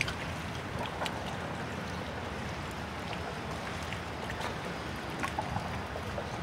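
Steady wind and water noise with a few faint clicks scattered through it.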